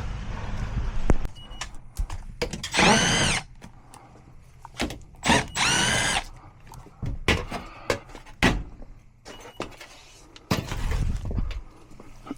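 Cordless drill run twice in short bursts, each spinning up and winding down. Knocks and clicks sound in between.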